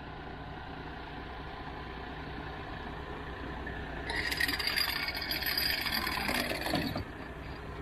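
Water tanker truck's diesel engine running steadily. About halfway in a loud hiss starts, lasts about three seconds and cuts off.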